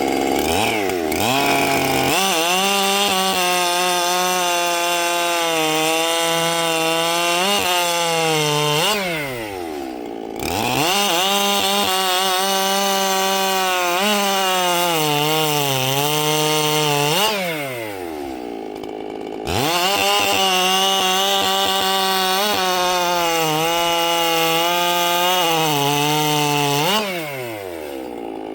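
Ported Echo CS-7310 two-stroke chainsaw bucking firewood: it runs at high revs through a cut, drops back toward idle, then revs up again, three times.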